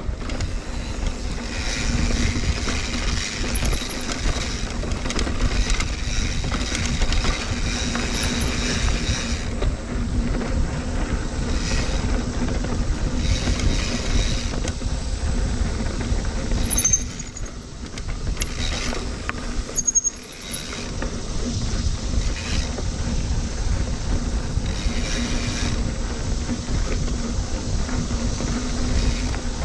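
Mountain bike riding on a dirt trail: steady wind rush on the microphone, with tyre and bike noise. It eases off briefly twice, about two-thirds of the way through.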